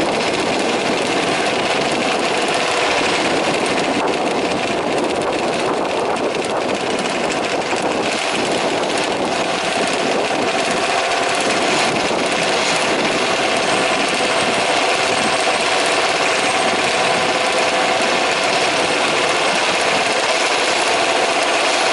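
Several 1/5-scale two-stroke petrol RC truck engines running at once, a dense buzzing whose many pitches waver up and down as the trucks race.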